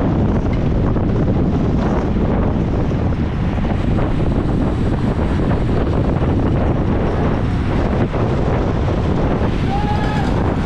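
Loud, steady wind buffeting the microphone of a bicycle camera at racing speed. A short high-pitched call sounds near the end.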